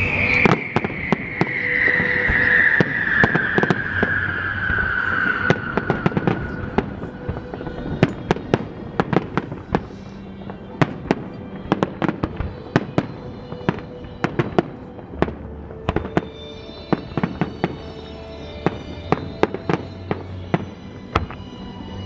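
Aerial fireworks going off in quick succession, sharp bangs and crackling bursts that come thicker from about eight seconds in. Music plays underneath, with a long falling tone over the first six seconds.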